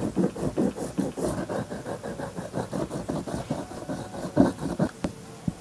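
A stick of abrasive polishing compound is scrubbed quickly back and forth across a wooden sharpening board for a French edger, a dry rasping rub several strokes a second. This charges the board with abrasive before the blade is sharpened. The rubbing stops shortly before the end, and a single click follows.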